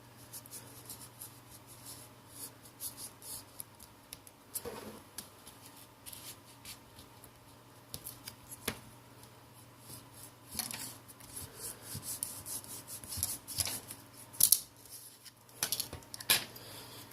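A playing card being worked under a phone's glued LCD to pry it loose: irregular short scrapes and small clicks, with a few louder ones near the end.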